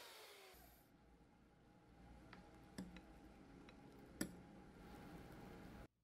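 Electric hand mixer's motor whine falling in pitch as it is turned down to low speed. It then runs quietly while the beaters whip egg foam, with a few clicks of the metal beaters against the glass bowl, the sharpest about four seconds in. The sound cuts off just before the end.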